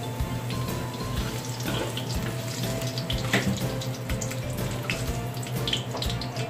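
Carrot and potato chunks frying in hot oil in an aluminium wok, a steady sizzle, with the spatulas scraping and clicking against the pan several times as they are stirred.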